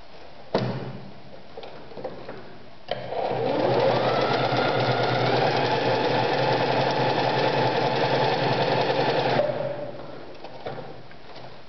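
Privileg Super Nutzstich 1511-1 domestic sewing machine starting up, its pitch rising over about a second as it gets up to speed, stitching steadily for about six seconds, then stopping. A single sharp click sounds a few seconds before it starts.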